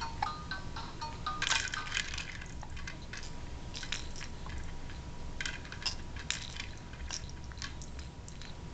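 Irregular clicks and crinkly rattles of a baby's toy being handled, over a faint steady high tone.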